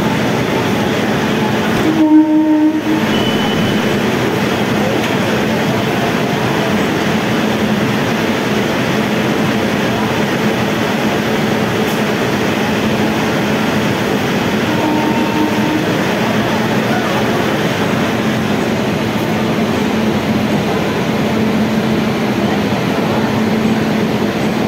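Steady running noise of a passenger train at a station platform, with a low hum throughout. A short horn blast sounds about two seconds in, and a fainter one comes a little past the middle.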